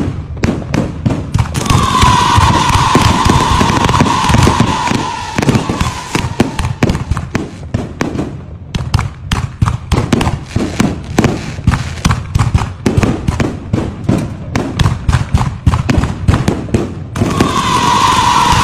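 Fireworks display: a rapid run of firecracker bangs and crackling shell bursts. A whistle slowly falls in pitch from about two to six seconds in, and another steady whistle starts near the end as a stream of sparks shoots up.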